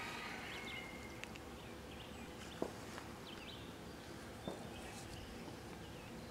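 Faint outdoor ambience with small birds chirping now and then and a few light clicks, the sharpest about two and a half seconds in. No gunshot.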